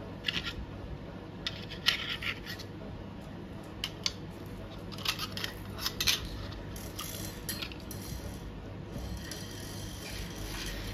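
Handling noises: a series of short, sharp clicks and scrapes, then a longer rustling or hissing stretch near the end.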